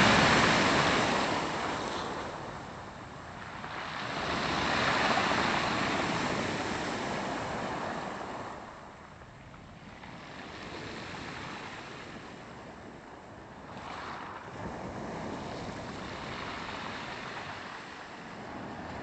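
Black Sea surf breaking and washing on the shore, in surges that rise and fall every few seconds, loudest at the start.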